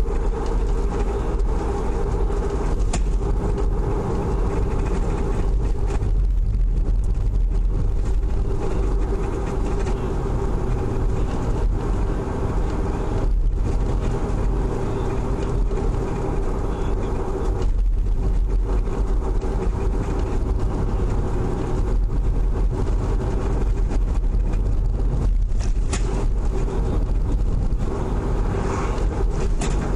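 Car driving, heard from inside the cabin: steady engine and tyre noise with a strong low rumble.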